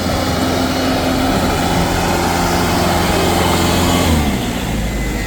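Tractor engine running steadily, then dropping in pitch about four seconds in as it throttles down.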